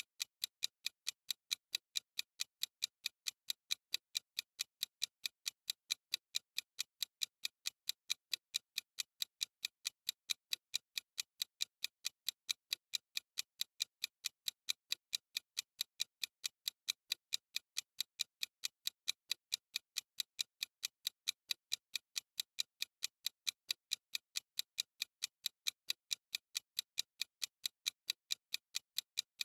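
Clock-ticking sound effect: crisp, evenly spaced ticks, several a second, keeping a steady rhythm.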